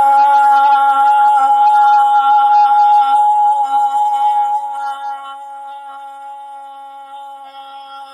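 A woman's voice holding one long sung «Я» ('ya') vowel on a steady pitch, as a breathing-and-voice exercise in laughter yoga. It is loud at first, then drops away about halfway through and carries on more quietly as the breath runs out.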